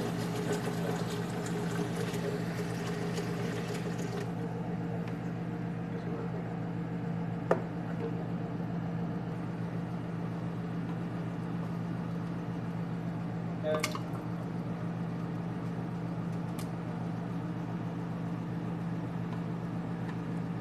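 A steady low mechanical hum over a rushing background, broken by two brief knocks, one about seven seconds in and a sharper one near fourteen seconds, as ingredients are dropped into an aluminium pressure-cooker pot of water.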